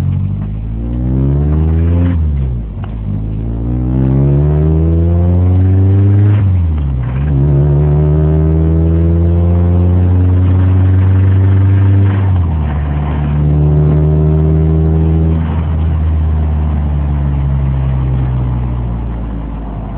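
Nissan KA24DE 2.4-litre four-cylinder engine pulling a car up through the gears: the pitch rises, drops sharply at gear changes about 2.5, 7 and 12.5 seconds in, and then holds nearly steady. The engine has a rod knock.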